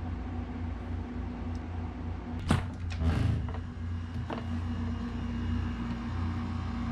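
A door knob turned and a door opened: a sharp click about two and a half seconds in, a short rush just after, and a lighter click about a second later. A steady low hum runs underneath.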